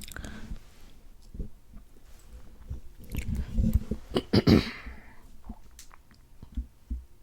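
Soft, scattered clicks and small wet ticks close to an ASMR microphone, with a cluster of louder clicks and a brief breathy swish about four and a half seconds in.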